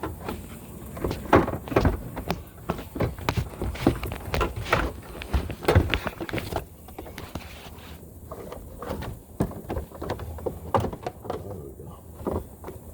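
Irregular knocks, clunks and scrapes of a car's skid plate being manoeuvred and pushed up into place under the car.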